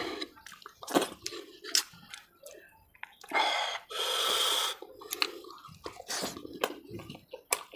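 Close-miked wet chewing and lip and mouth clicks of a person eating mutton curry with bone-in meat, with a long slurping suck lasting over a second about three seconds in.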